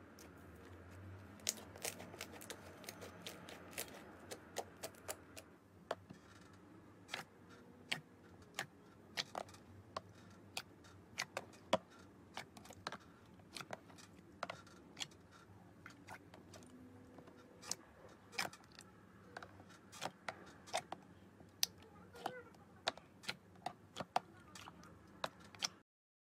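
Hands squeezing, stretching and pressing slime, giving many sharp, irregular clicks and pops of trapped air, several a second. The sound breaks off suddenly near the end.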